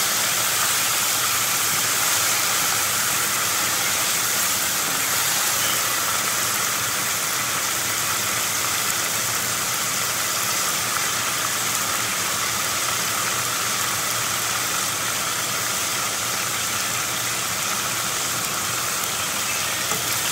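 Floured squid pieces deep-frying in hot oil in a pan: a steady, dense sizzle of bubbling oil.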